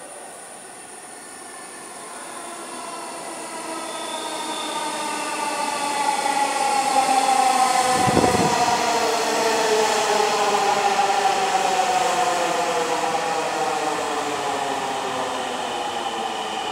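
Electric Dhaka Metro train arriving and braking at the platform. Its rumble grows louder until it passes at its loudest about halfway through, while a whine of several tones falls steadily in pitch as it slows to a stop.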